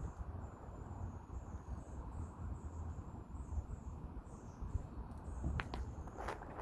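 Insects, cricket-like, chirping in a high, pulsing trill over a low rumble of background noise, with a few sharp clicks near the end.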